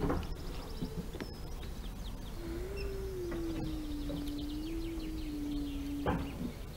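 Small birds chirping and twittering in quick trills, over a low outdoor rumble. A steady low hum, drifting slightly in pitch, runs through the middle few seconds, and there are two sharp knocks, one at the start and one about six seconds in.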